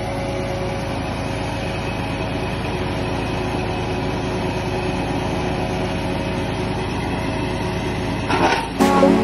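Wood chipper-shredder's 14 HP, 459 cc petrol engine running steadily, with a short burst of noise shortly before the end.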